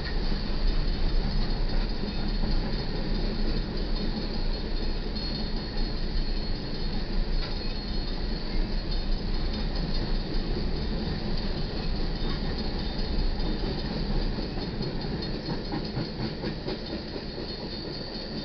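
Empty coal hopper cars of a freight train rolling past over a grade crossing: a steady rumble and clatter of steel wheels on rail. It fades over the last few seconds as the end of the train goes by.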